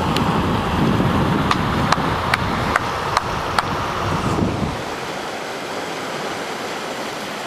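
Wind buffeting the microphone outdoors with a rushing noise that eases off about two-thirds of the way through, leaving a steady hiss. In the middle there is a run of six light, sharp ticks, a little over two a second.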